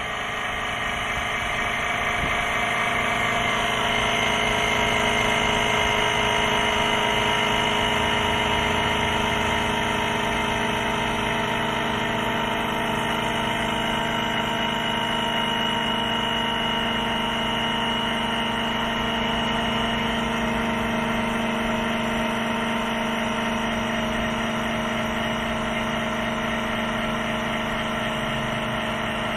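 Air Lift WirelessONE onboard air compressor running steadily, pumping air into the airbag of a fifth-wheel pin box to raise its pressure. It starts up and builds over the first few seconds, then holds an even running note.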